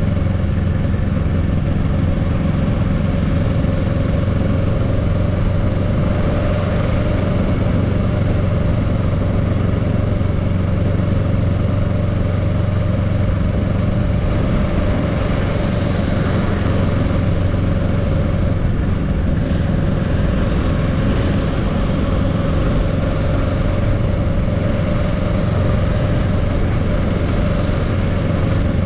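Kawasaki Z650's parallel-twin engine running steadily as the motorcycle cruises at just under 30 mph, with a steady rush of wind and road noise over the engine note.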